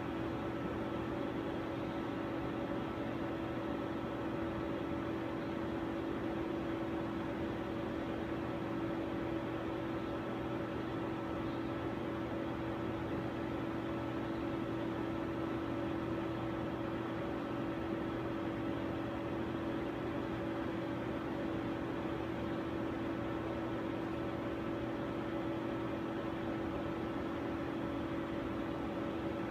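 Steady mechanical hum of laboratory equipment running, with a strong low steady tone and fainter higher tones over a constant whir.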